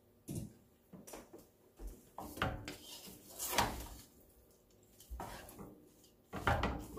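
Wooden spoon stirring and tossing rice vermicelli in a stainless steel stockpot, with irregular knocks and scrapes of wood against the metal pot.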